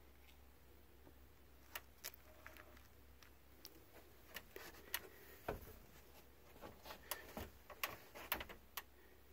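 Faint, irregular ticks and clicks, a few at first and coming more often in the second half, over a low steady hum.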